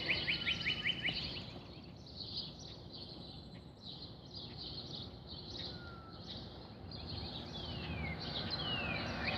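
Small birds singing and chirping. A fast trill of repeated notes in the first second is followed by scattered high chirps and a few falling whistled notes near the end, over steady outdoor background noise.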